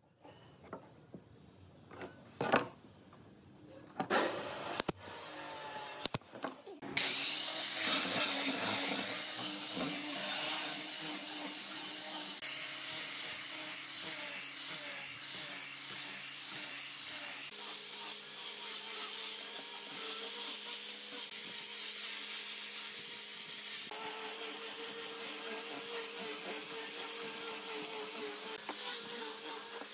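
A few sharp knocks of wooden pieces being handled, then, about seven seconds in, an angle grinder with a sanding disc starts running steadily, sanding pine.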